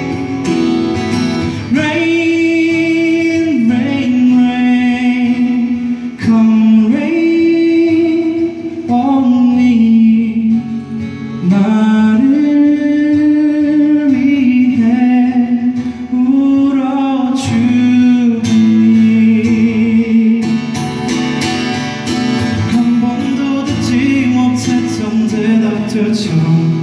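A man singing long held notes into a microphone over his own strummed acoustic guitar, in a live acoustic ballad.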